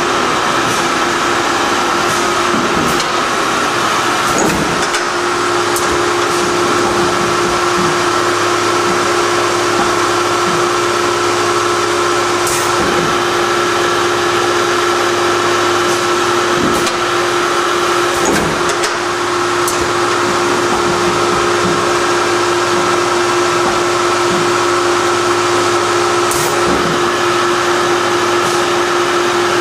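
Steady hum of running industrial machinery: a constant mid-pitched tone over an even rushing noise. Occasional light knocks and clicks come through it.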